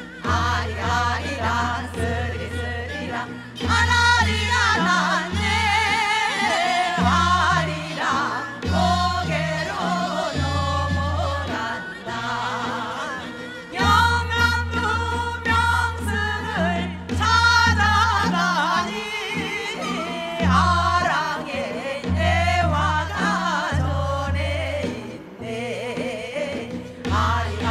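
Female voices singing a Korean folk song (minyo) with wide, wavering vibrato, over an accompaniment with a deep bass that pulses on and off.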